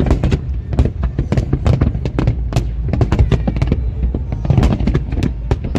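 Fireworks display going off continuously: a rapid, dense string of cracks and bangs over a steady low rumble of booms.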